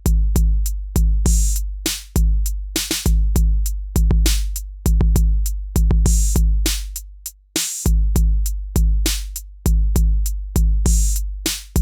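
Outro music: an electronic drum-machine beat of long, deep bass kicks under sharp snare and hi-hat hits. The bass fades out briefly about seven seconds in, then the beat comes back.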